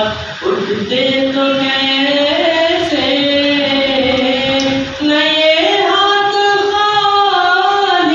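A man sings a naat, an Urdu devotional poem in praise of the Prophet, solo in long, held, ornamented notes. He takes short breaths about half a second in and about five seconds in; the second phrase starts on a higher note.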